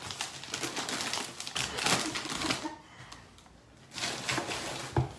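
Rapid light clicks and rustling of plastic packaging being handled, with a short lull about three seconds in before the clicking resumes.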